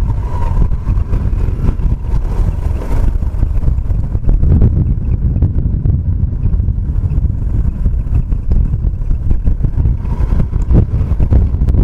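Motorcycle being ridden at road speed, its engine running steadily under a heavy, uneven rumble of wind on the rider's camera microphone.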